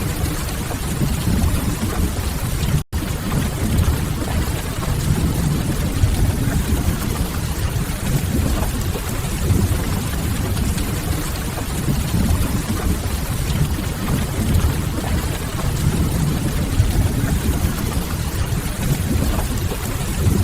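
Steady rain-ambience noise with a heavy low rumble underneath, dense and even throughout; it cuts out for an instant about three seconds in.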